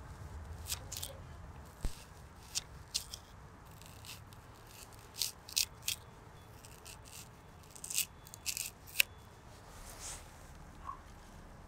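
A tiny knife slicing a small onion into rings on a miniature wooden cutting board: about a dozen crisp, irregular cuts, the loudest near the end, over a faint low rumble.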